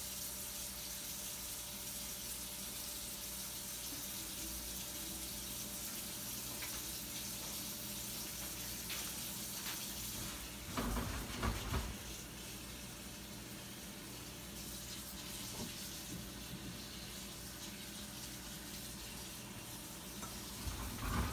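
Kitchen tap running steadily as water is drawn to fill the pot of peanuts, with a few loud knocks and clunks about halfway through and another near the end.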